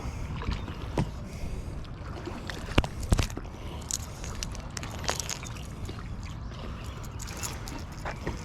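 Water splashing and sloshing with a few sharp knocks as a small hooked smallmouth bass is fought and landed. A steady low rumble runs underneath.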